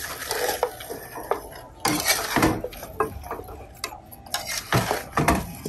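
A metal spatula and a ladle scrape and clank against a pan as fried chicken feet are tossed in a thick sauce. The knocks and scrapes come irregularly, with the loudest clanks about two seconds in and near the end.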